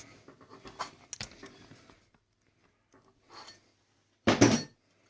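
Scrap metal parts from a dismantled coffee maker being handled: light scraping and small clicks, then one short, loud clatter a little over four seconds in.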